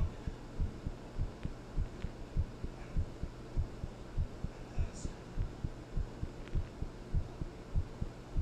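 A human heartbeat recorded close up: steady, quick paired lub-dub thumps, low and dull, over a constant low hum.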